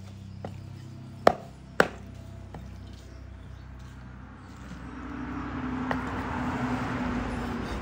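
A cleaver chops raw pork leg on a wooden chopping board: a light knock, then two sharp chops in quick succession about a second and a half in. In the second half a steady noise with a low hum swells up and eases off near the end.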